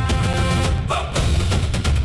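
Background music with a heavy, fast drum beat and deep bass, with a held chord over the first second.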